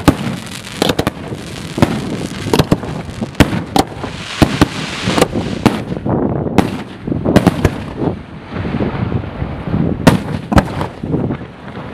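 Fireworks display going off: a dense, irregular series of sharp bangs and pops, several a second at times, over continuous crackling.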